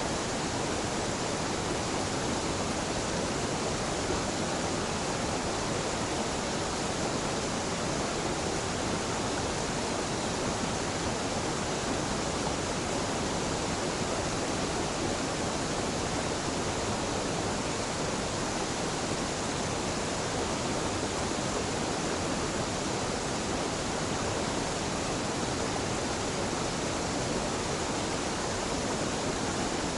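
Waterfall on a mountain stream: a steady, even rush of falling water that holds unchanged throughout.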